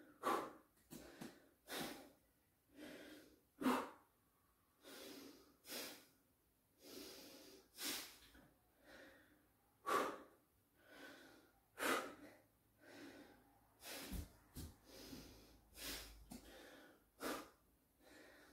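A man breathing hard while holding a forearm plank: faint, short, uneven breaths, about one a second.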